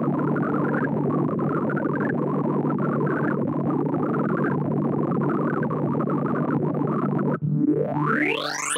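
Computer-generated sorting sonification: a rapid, dense stream of synthesized beeps whose pitch follows the array values being accessed. About seven seconds in it gives way to several rising pitch sweeps as the sort nears completion.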